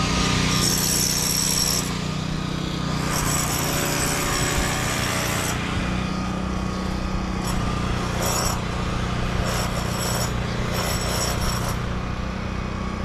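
Construction machinery running: a steady engine hum with a power tool starting and stopping in high-pitched spells, longer ones in the first half and shorter ones later.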